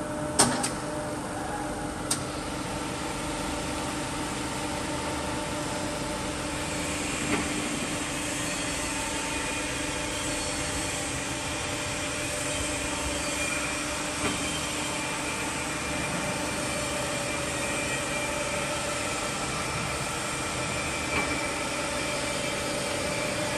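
Jones & Shipman 1078 cylindrical grinder running through its grinding cycle: a steady machine hum with a faint whine. Two sharp clicks come in the first two seconds, and a soft knock comes about every seven seconds.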